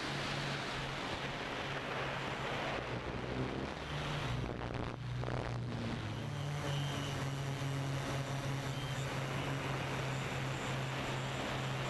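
DJI quadcopter's electric motors and propellers humming steadily close to the microphone, with a steady hiss. The hum shifts slightly in pitch a couple of times as the quadcopter manoeuvres.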